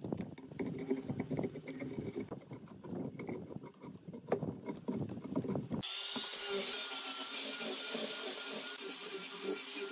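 A chisel scraping and prying bark off a log in irregular strokes. About six seconds in, an angle grinder with a sanding disc takes over, running steadily as it sands the bare wood.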